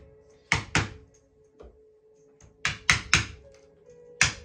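Round-headed wooden mallet striking a wooden caning wedge, driving pressed cane into the seat groove: sharp wooden knocks in quick groups, two, then three, then one more near the end. Faint background music underneath.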